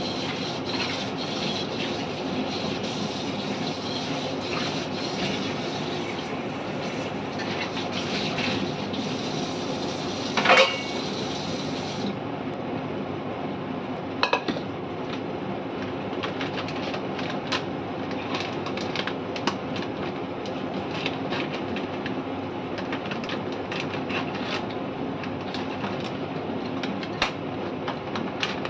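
Curry simmering in a covered aluminium pot on the stove: a steady bubbling hiss with many small ticks and pops, and two louder metallic clinks about ten and fourteen seconds in.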